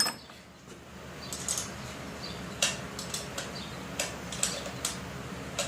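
Scattered light clicks and taps, irregular and unrhythmic, from the bicycle being handled while its seat is adjusted, over a faint steady hum.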